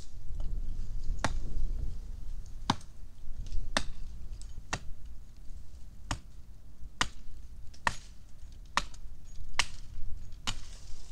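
Hatchet chopping into a tree branch: about ten sharp, separate strikes, roughly one a second.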